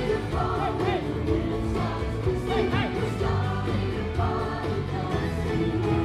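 Music with singing voices.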